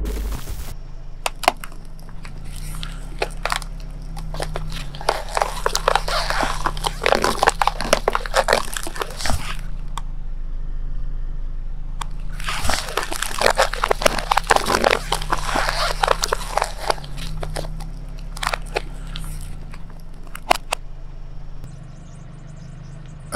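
Crunching and crackling of objects being crushed under a slowly rolling car tyre, in two long spells of dense snaps with a short lull between, over the steady low hum of the car's engine.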